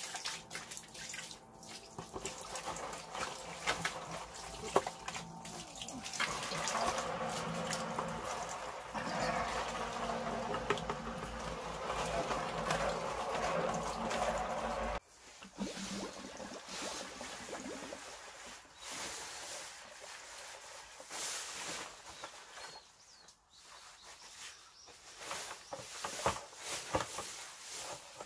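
Water running from a garden hose into a plastic bucket, growing fuller-sounding about six seconds in, then stopping abruptly about halfway through. After that, only scattered small knocks and ticks.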